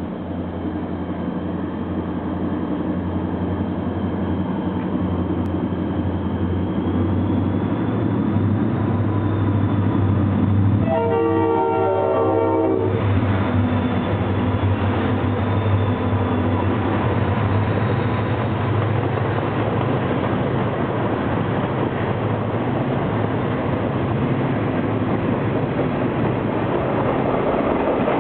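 Freight train led by CSX SD40-2 diesels with EMD 645 engines, running and growing louder as it approaches. About eleven seconds in, the lead unit's Leslie S5T five-chime horn sounds one blast of about two seconds. The rumble of the locomotives and freight cars rolling past follows.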